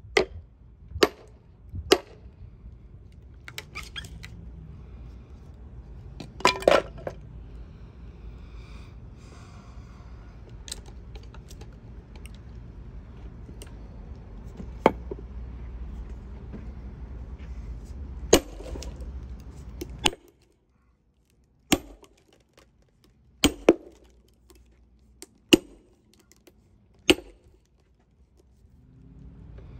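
Short-handled sledgehammer striking wooden and plastic splitting wedges driven into a hickory log to rive it open: a series of sharp, irregularly spaced blows. A low steady rumble underneath drops out about two-thirds of the way in.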